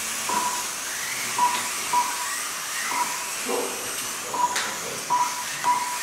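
Small electric RC cars racing: the high whine of their little motors rises and falls as they speed up and brake through the corners. Short electronic beeps, typical of a lap-timing system, sound about seven times as cars cross the line, with a few light clicks.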